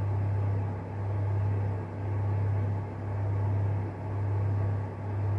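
A steady low hum that swells and fades about once a second, from some running machine or electrical device.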